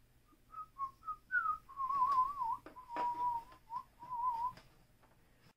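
A man whistling an idle, wavering tune in short phrases that trail off near the end. A couple of light clicks from plastic toy parts being fitted come about halfway through.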